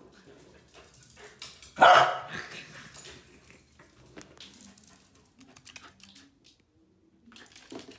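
Corgi giving one short, loud bark about two seconds in, followed by light scattered clicks.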